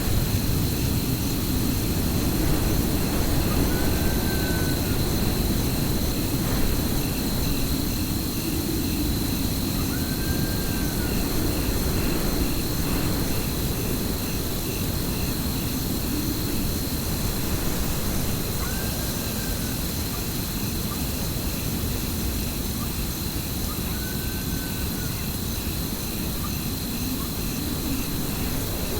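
Steady rain with a continuous low rumble of thunder. Four times, a faint short call rises and falls: wolves howling.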